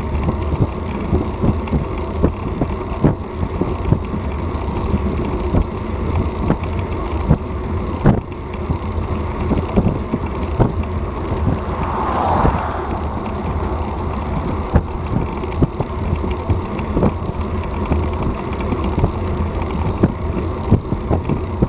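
Wind rushing over a bicycle-mounted action camera's microphone at road speed, with steady road rumble and frequent small irregular knocks from the bike and camera mount jolting over the pavement.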